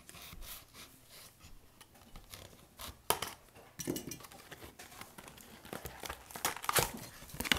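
Utility knife scraping and slitting the wrapped top of a cardboard trading-card box, then crinkling wrap and the box being handled: a string of small clicks and scrapes, with sharper rustles about three seconds in and several more near the end.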